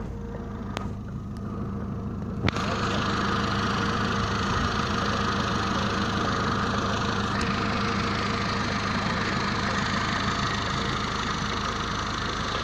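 Car engine running steadily at low revs as the car drives slowly over a rough dirt track. A click comes about two and a half seconds in, and after it a steady rush of road and wind noise comes up over the engine.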